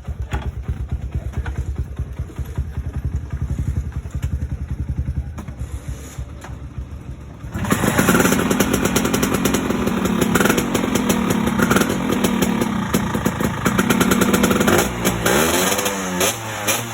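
Vespa smallframe scooter's single-cylinder two-stroke engine running with a low, pulsing beat. About seven and a half seconds in it suddenly gets much louder and faster, and near the end its pitch swings up and down as the engine speed changes.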